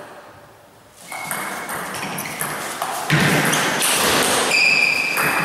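Table tennis rally: the ball clicking off paddles and table, with short high squeaks of sports shoes on the floor about a second in and near the end.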